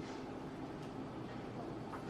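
Low, steady background hum with no distinct events.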